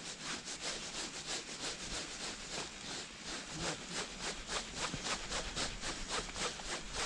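Spinning reel being cranked steadily to wind in the line, a rhythmic rasping at about five strokes a second.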